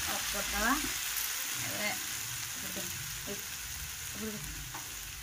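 Mushroom and ivy gourd curry sizzling in a hot non-stick frying pan, a steady frying hiss.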